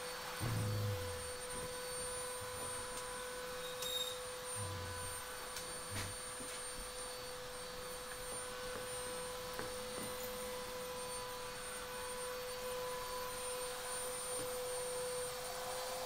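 A steady electronic tone at one unchanging pitch, with a few soft low thumps about half a second in, around the middle and a little after.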